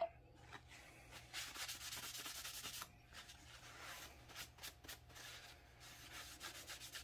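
Paper towel rubbing wood stain into a small piece of Baltic birch plywood: a dense stretch of wiping for about a second and a half, starting about a second in, then shorter, fainter strokes. A single sharp tap right at the start.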